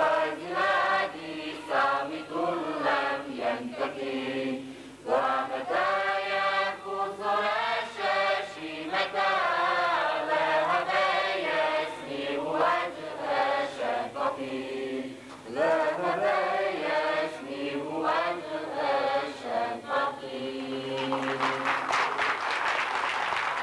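A choir singing an Arabic ilahija, a Bosnian Islamic devotional hymn, in long held lines that rise and fall in pitch. Near the end the last note is held and applause begins.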